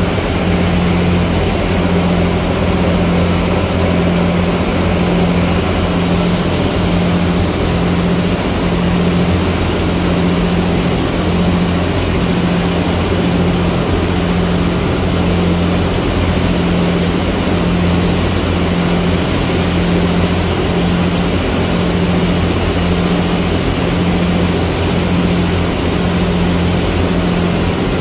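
A ferry's engines running at cruising speed: a steady low drone, with the rush of the churning wake and the air underneath.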